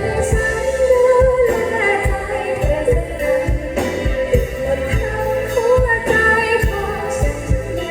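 Live band music with a female singer's voice carrying the melody over a steady kick-drum beat.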